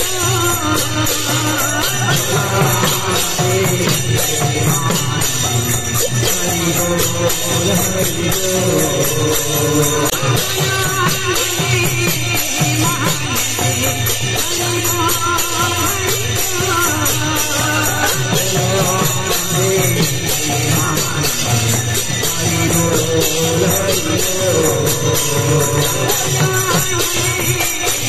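Kirtan music played live: hand cymbals clash in a fast, continuous jingle over the beat of large two-headed barrel drums.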